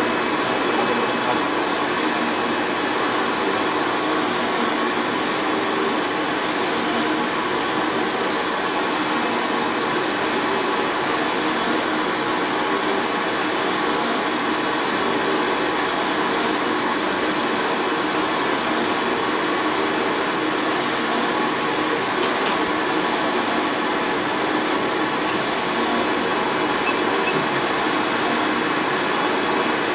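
UV flatbed inkjet printer running a print job: a steady mechanical whir and hiss from the machine, with a regular pulse about once a second as the printhead carriage sweeps back and forth.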